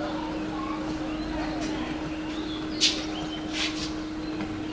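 Open-air ambience with faint, indistinct distant voices over a steady low hum, broken by two short hissing bursts, the louder one just under three seconds in and a weaker one over half a second later.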